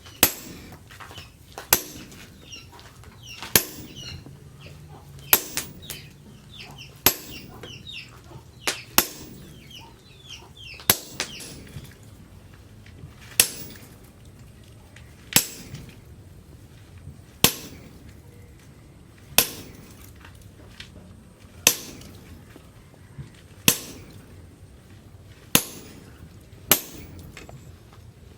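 A hammer striking leaf-spring steel on an anvil in a slow, steady rhythm, one sharp blow about every two seconds, with a quick double blow now and then. Birds chirp between the blows in the first ten seconds.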